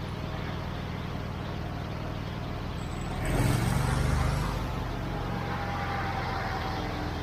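A small engine running steadily with a low drone, swelling louder for about a second around the middle.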